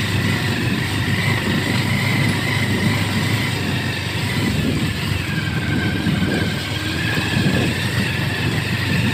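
Motorcycle engine running as it rides slowly over a rough, rutted dirt road, with a steady rumble and road noise and a faint high whine.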